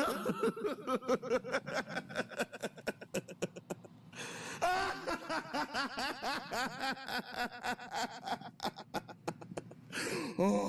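A person laughing in rapid, pulsing bursts of about five a second, going higher in pitch about halfway through.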